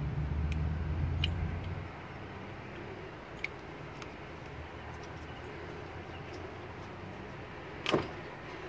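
Hands working an oxygen sensor's wiring connector into its harness among engine-bay wiring: faint scattered clicks, with one sharp click near the end. A low rumble underneath drops away about two seconds in.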